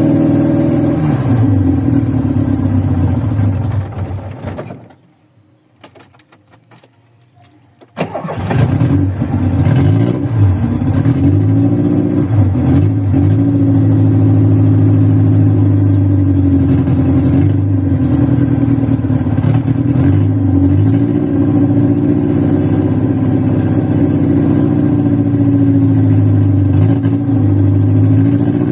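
Cold VW Voyage's carbureted engine running rough with wavering revs, dying out about four seconds in; after a few quiet seconds it catches again suddenly and keeps running unevenly, the revs rising and falling. The rough, stalling idle comes from worn-out old mechanical parts.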